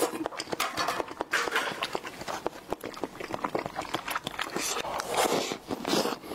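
Close-miked eating sounds: wet mouth smacks and squelchy clicks as a squeezed fruit jelly is chewed and swallowed, then a bite into a strawberry cream dessert near the end.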